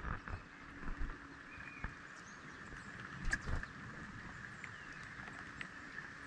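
Tufted titmice landing on and pecking at a mesh tray feeder of mixed seed, making a few soft knocks and taps, with a louder pair of knocks about three seconds in, over a steady faint hiss.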